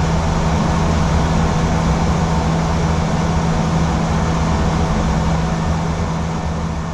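Steady flight-deck noise of an Airbus A320 climbing after takeoff: an even rush of air over a constant low hum.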